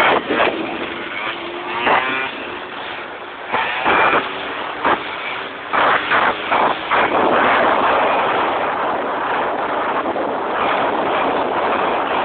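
Small scooter engine revving on the throttle while a wheelie is pulled, half buried under wind rushing over the phone's microphone, with several sudden loud gusts in the first half.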